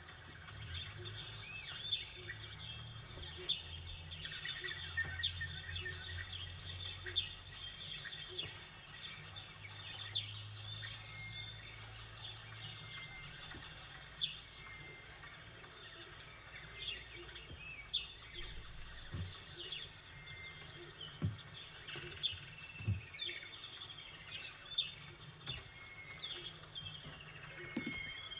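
Small birds chirping, many short calls one after another, over a steady outdoor background with a low rumble that fades out about two-thirds of the way through.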